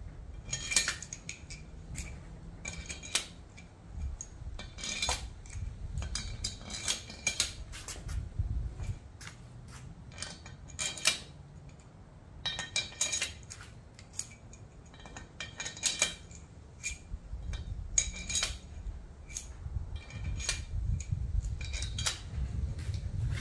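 Steel cylinder head bolts being dropped and set by hand into the bolt holes of an aluminium cylinder head: irregular metallic clinks and taps, many of them, with a short ring after each.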